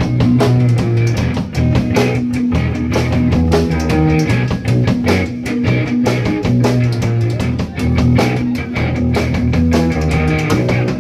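Live alternative rock band playing: electric guitars and a drum kit, with a steady beat and sustained low notes.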